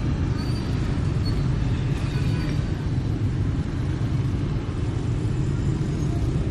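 Road traffic of motorbikes and cars passing: a steady rumble of engines and tyres.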